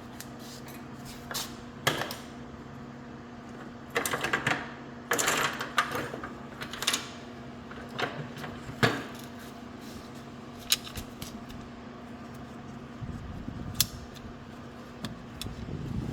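Scattered clicks and clinks of metal tools and car parts being handled, a few short clattering runs a third of the way in, over a steady low hum.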